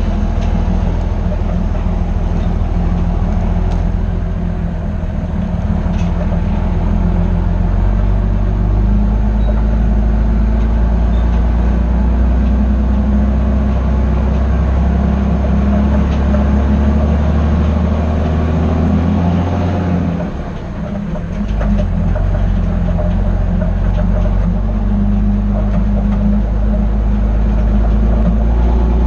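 Heavy diesel engine running steadily under load. About two-thirds of the way through it briefly drops off, then comes back up.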